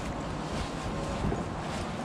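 Wind buffeting an action camera's microphone: a steady rushing noise with an uneven low rumble.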